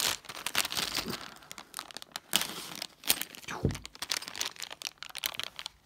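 Thin clear plastic bag crinkling and crackling in irregular bursts as it is handled and pulled open by hand.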